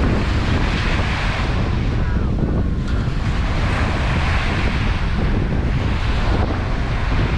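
Small ocean waves breaking and washing up a sandy beach, the hiss of the wash swelling about every three seconds, with wind buffeting the microphone in a steady low rumble.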